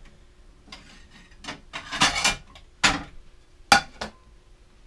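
Dishes clattering as a plate is taken out of a cupboard and set down on the countertop: several separate knocks and clinks, the sharpest about three and a half seconds in.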